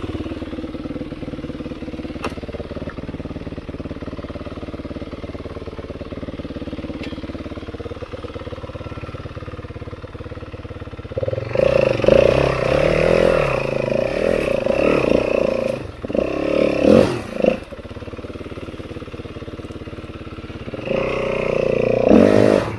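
Yamaha four-stroke single-cylinder dirt bike engine idling steadily, then, about eleven seconds in, revved and ridden under load, the revs rising and falling. It eases off for a few seconds and picks up again near the end.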